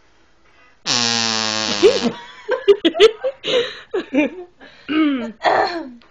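A drinking straw blown to make a fart noise: one loud, low, steady buzz about a second long that starts about a second in and cuts off sharply. Laughing and coughing follow it.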